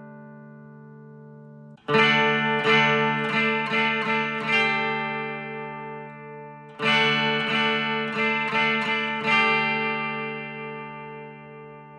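Clean electric guitar, a Fender Telecaster on its bridge pickup, played through a Vox AC10 combo amp. A chord dies away, and about two seconds in a new chord is struck and re-picked several times in rhythm. The same phrase comes again about seven seconds in and is left to ring out.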